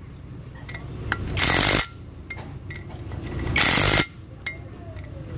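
Cordless impact wrench hammering in two short bursts, about a second and a half in and again near four seconds, running down the bolts that join the wheel hub to a new brake rotor.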